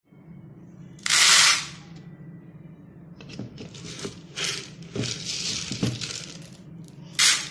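Dried mung beans poured into a clear plastic tub, rattling against the plastic: a loud rush about a second in, a string of shorter rattles in the middle, and one more short rush near the end.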